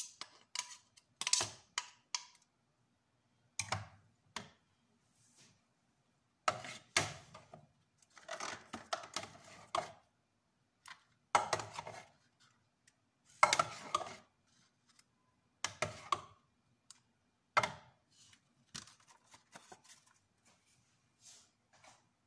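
A metal spoon scraping and knocking against a plastic blender jar and small plastic containers while blended tomato pulp is scooped out: irregular clicks, knocks and scrapes with short pauses between them.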